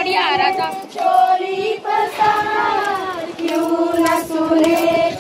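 A group of women singing together in chorus, drawing out long held notes.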